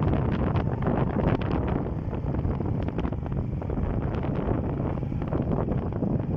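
Wind rushing over the microphone of a moving motorcycle, a steady low rush broken by frequent gusty buffets, with the bike's road noise mixed in.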